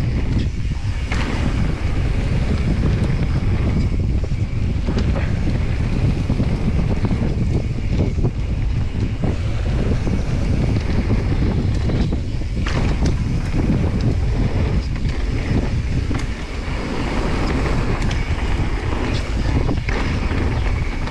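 Wind buffeting the microphone of a GoPro Hero 9 on a mountain bike riding downhill, over the rumble of the tyres on a dirt trail. Scattered knocks and rattles come from the Specialized Stumpjumper Evo as it runs over bumps.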